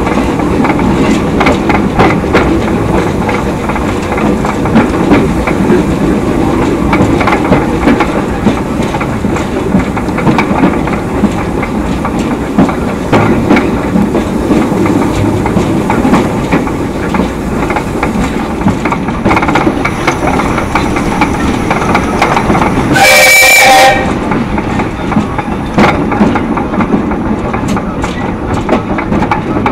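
2 ft narrow-gauge steam train running, its wheels clacking over the rail joints. About three quarters of the way through, the steam locomotive gives one short, loud whistle blast.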